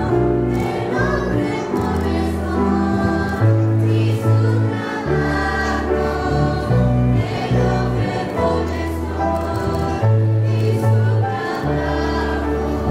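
Church choir singing a hymn over held bass notes that change every second or two.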